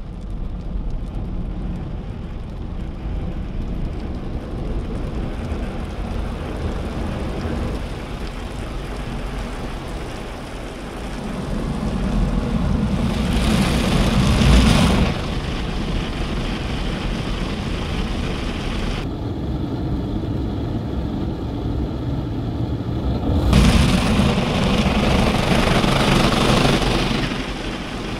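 Automatic car wash heard from inside the car: water spraying and drumming on the windscreen and bodywork, with the wash machinery running. The spray swells louder twice, about halfway through and again near the end, with a quieter, duller stretch in between.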